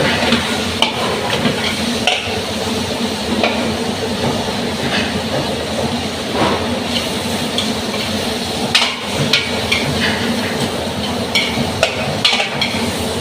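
Shrimp and vegetables frying in a pan, stir-fried with a utensil that clicks and scrapes against the pan at irregular intervals over a steady sizzle.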